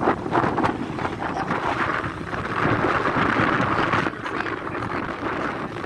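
Wind rushing over the microphone with rumbling road and vehicle noise while travelling, getting louder for a second or two in the middle.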